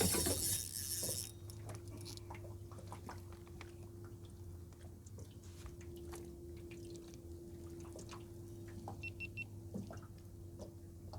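Faint small taps and clicks of fishing tackle being handled in a small boat, over a steady low hum; a brief hiss at the start cuts off after about a second, and a few short high beeps come about nine seconds in.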